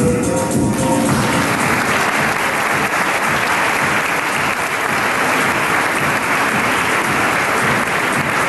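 Audience applauding, the clapping swelling in about a second in and holding steady, over background music.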